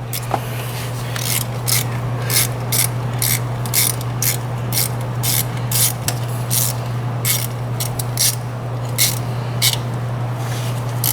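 Ratchet wrench clicking in short, uneven strokes, about one or two clicks a second, as the two screws holding the thermostat to the engine block are tightened. A steady low hum runs underneath.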